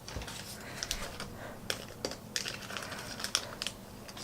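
Irregular light clicks and taps of hard plastic packaging and small plastic figure parts being handled.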